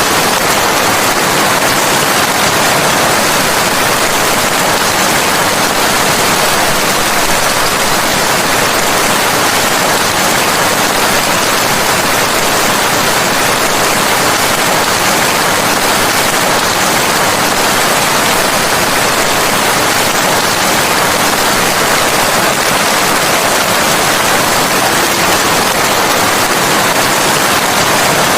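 Steady rain, an even hiss that holds unchanged, with no single drops, thunder or other events standing out.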